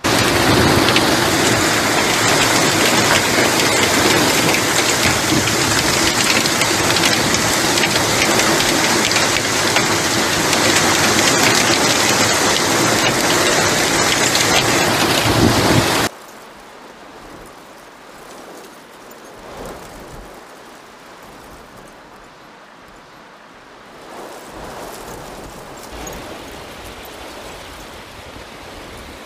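Hailstorm: dense hail pelting down in a loud, continuous clatter of countless impacts. About sixteen seconds in it cuts off suddenly to a much quieter, steady downpour.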